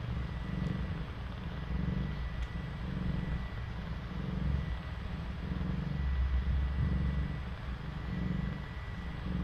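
Cat purring while nursing kittens: a steady low purr that swells and eases with each breath, about once a second. A faint steady high whine sits underneath.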